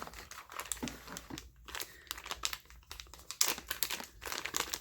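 Packaging crinkling and rustling in irregular bursts as items are handled and pulled out of an unboxed kit, loudest about three and a half seconds in.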